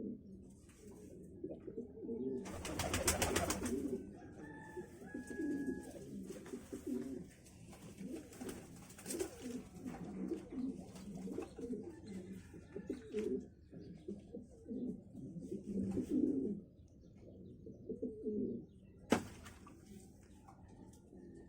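Pigeons cooing again and again in low, repeated calls. A loud burst of rapid clatter comes about three seconds in, and a single sharp click near the end.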